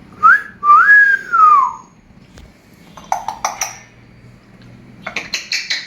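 African grey parrot whistling: a short rising note, then a longer note that rises, holds and glides down. About three and five seconds in come short bursts of rapid raspy clicking.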